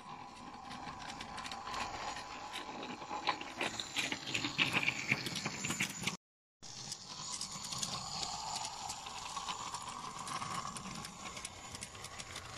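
G-scale model train running along garden track: a steady whine from the locomotive's electric motor and gearing, with rapid irregular clicking and rattling of the wheels over the rails and joints. The sound cuts out briefly about six seconds in.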